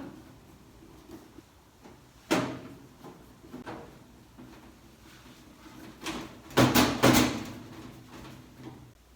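Knocks and clatter from a microwave oven being handled during a fuse repair: a sharp knock about two seconds in, a softer one a second later, and two loud knocks in quick succession about seven seconds in.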